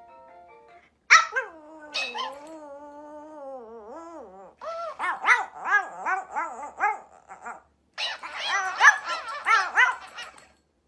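A Pomeranian howling and yipping: a long wavering howl that sinks slowly in pitch, then two quick runs of short yelping barks, about three a second.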